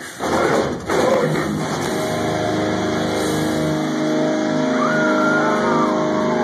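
Live metal band on a club stage: a sharp break, a couple of heavy hits in the first second, then distorted guitars and bass holding one long ringing chord, with a wavering high tone coming in near the end.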